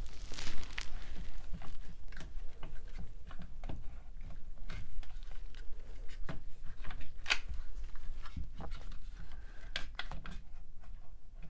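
Irregular small clicks and light knocks of hands working a one-handed bar clamp against a wooden chair frame, tightening it on a glued joint.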